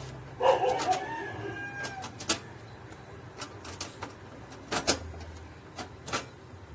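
Sharp clicks from the gas cartridge lever of a portable butane camping stove as it is pressed and worked, several times. A rooster crows once in the background, about a second and a half long, starting half a second in.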